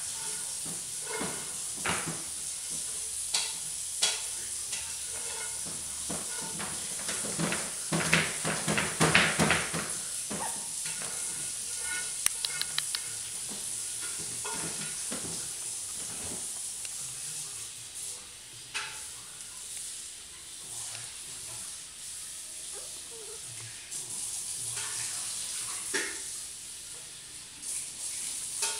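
Rustling and scuffing of fleece blankets as small Chihuahua puppies scramble and play on them, over a steady hiss, with a louder spell of scuffling about eight to ten seconds in.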